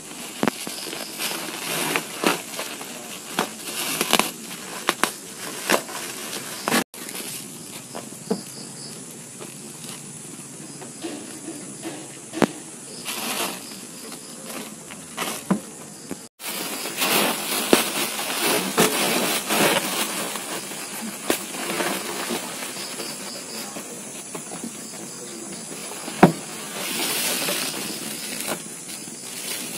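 Thin plastic bag crinkling and rustling in irregular bursts as cats paw, nose and bite at it to get at the snack inside. Near the end there is a single sharp knock.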